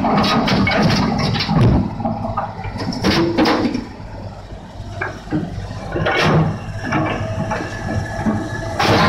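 Rocks clattering and knocking as a hydraulic excavator dumps its bucket load into a dump truck and digs into a rock pile, with sharp rock impacts over the excavator's diesel engine running. Music starts near the end.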